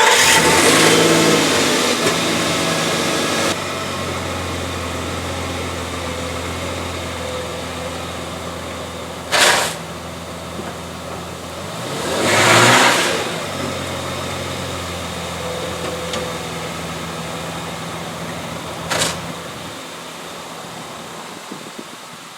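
Nissan Frontier pickup engine starting and settling into a steady idle. A short rushing noise comes about nine seconds in, a longer one swells and fades around twelve to thirteen seconds, and another short one comes near nineteen seconds.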